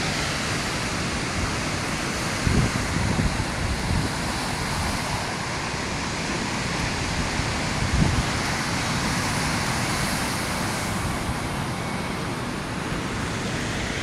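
Ocean surf washing onto the shore: a steady, even rush of breaking waves, with a couple of brief low thumps about two and a half and eight seconds in.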